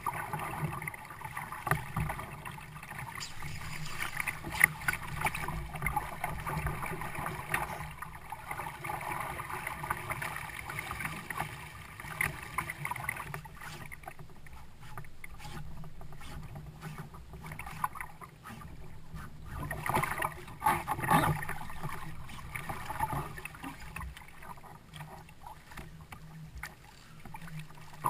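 Water sloshing and splashing against a kayak, with scattered knocks on the hull and a louder burst of splashing about twenty seconds in.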